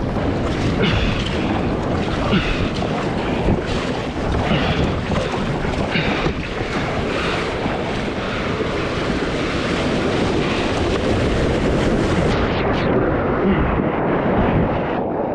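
Wind buffeting the microphone over open sea and waves as a kayak is paddled, with short splashes recurring about every second.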